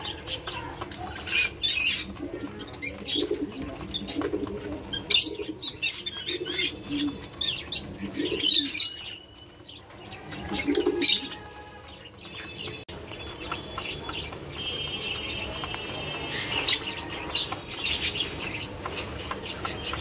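Caged doves shuffling and flapping their wings in short bursts, with low coos in between.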